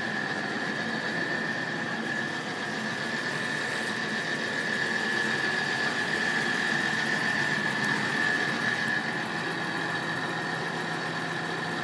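Level crossing alarm sounder sounding one steady, unbroken high tone while the barriers are down and the warning lights flash, over a steady low rumble.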